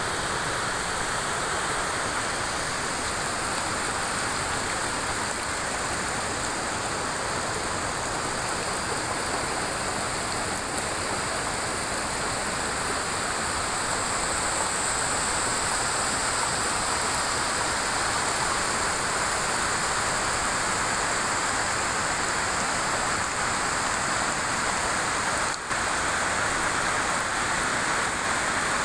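River water rushing and splashing in a steady, even flow, with a momentary break near the end.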